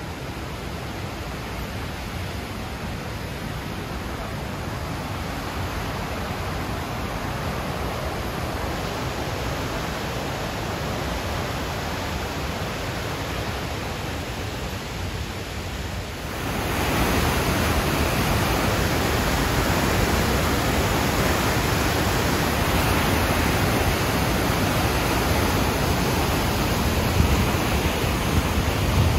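Flowing river water rushing steadily, an even noise that gets suddenly louder a little past halfway.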